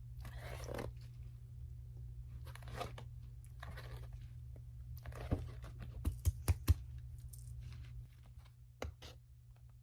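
Paper handling: glossy album photobook pages being turned, with a few brief soft rustles. These are followed by a quick run of light taps and clicks, and two more near the end.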